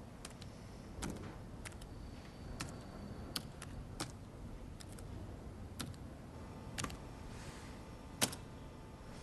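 A string of irregular, sharp light clicks and taps over a low room hum, the loudest a little after eight seconds; a faint steady tone joins a little after six seconds.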